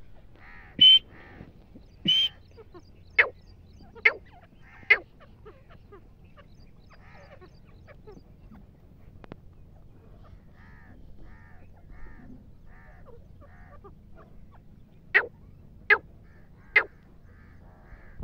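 Birds calling: a handful of short, sharp, loud calls, two at the start and three more over the next few seconds, then three close together near the end, with fainter evenly repeated chirps in between.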